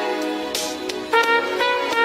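Background music: a melodic instrumental passage of held pitched notes, without bass or drums.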